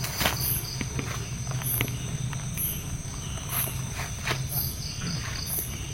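Night insects chirping in short high-pitched pulses, repeating roughly every half-second to second, with scattered soft clicks and rustles from footsteps over a steady low hum.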